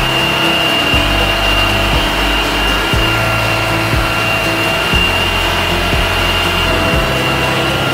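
Background music with a steady beat about once a second and a low bass line that changes note on the beat, over a constant hiss.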